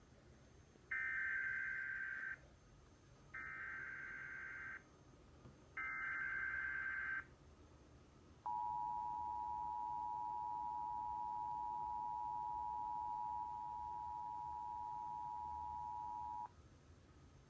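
Emergency Alert System header: three bursts of warbling SAME data tones, each about a second and a half long, followed by the two-tone attention signal, a steady dual-pitched tone held for about eight seconds. The sequence announces an emergency alert, here a severe thunderstorm warning.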